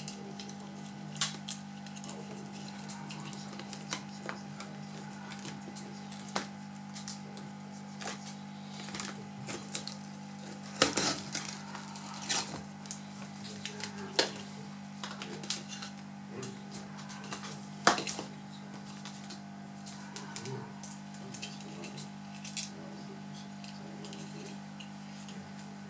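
Plastic snap-clips of a Samsung NP535U3C laptop's screen bezel clicking and popping as the bezel is pried off by hand. The clicks are scattered and irregular, with two louder snaps, one about halfway through and one about two-thirds in. A steady low hum runs underneath.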